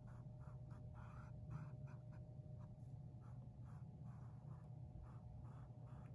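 Paintbrush bristles brushing paint onto stretched canvas in quick back-and-forth strokes, about three faint scratchy strokes a second.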